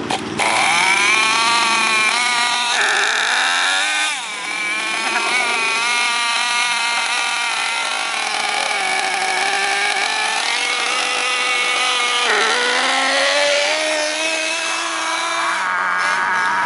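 Small glow-fuel (nitro) engine of a radio-controlled touring car starting up and running at high revs. Its high-pitched buzz rises and falls in pitch as the throttle is blipped.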